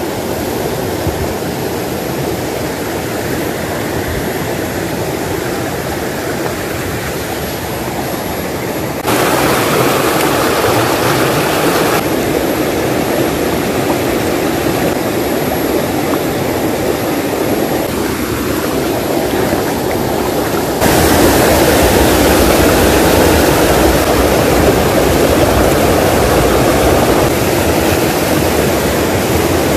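Shallow rocky stream rushing over stones and small rapids, a steady loud wash of water. It jumps louder abruptly about nine seconds in and again about twenty-one seconds in.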